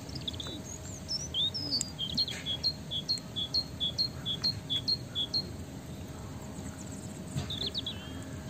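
A small songbird singing: a quick two-note phrase, a high note dropping to a lower one, repeated about eight times starting about two seconds in, with scattered chirps before it and another short burst of chirps near the end.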